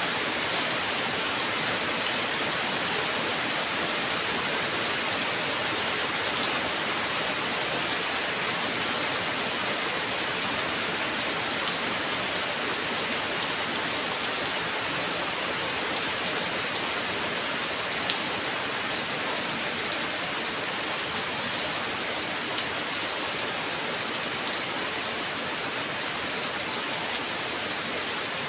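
Heavy rain falling steadily, a dense even hiss of drops with a few sharper drop hits.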